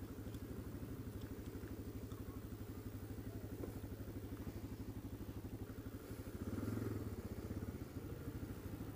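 Motorcycle engine idling with an even, rapid pulse, then getting louder for a moment about six to seven seconds in as the bike pulls away.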